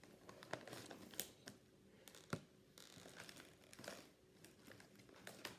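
Snack bag packaging crinkling faintly as it is handled, with scattered small crackles and one sharper crackle a little past two seconds in.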